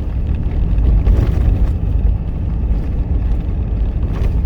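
A vehicle driving, with a steady low rumble of engine and road noise.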